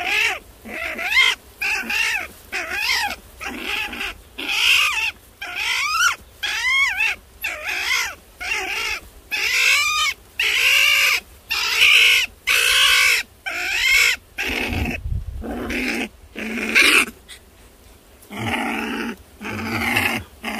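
A trapped young animal crying out in a rapid series of high, whining yelps, each rising and then falling in pitch, about one or two a second. The cries break off briefly about two thirds of the way through, with a low rumble, then start again.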